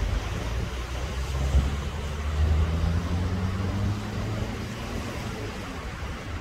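An engine drones, its pitch rising slowly for a few seconds, over a steady hiss of surf and wind.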